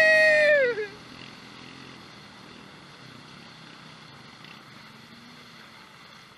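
A loud, held, high-pitched whoop that drops away under a second in, then the faint steady hum of a four-wheeler engine running.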